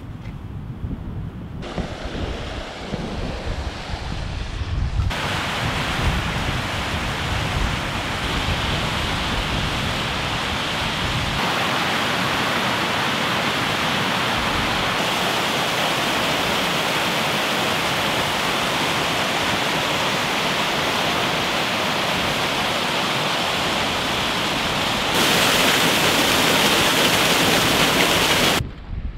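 Mountain stream and small waterfall rushing over rocks, a steady, even roar that steps up and down at several abrupt cuts and is loudest near the end. The first few seconds carry a low wind rumble on the microphone.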